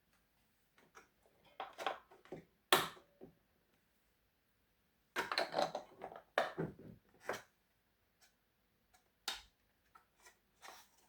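Handling noise of a plastic talking alarm clock and its packaging: scattered clicks, taps and rattles in a few short clusters, with a single sharp click a little after nine seconds.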